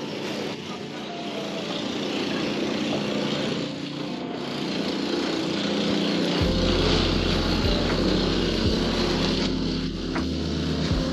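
A small engine running steadily, with a deep low rumble joining about six seconds in.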